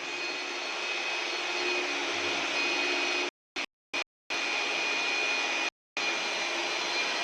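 A steady machine whir with a thin high whine running through it, broken by a few short dropouts into total silence.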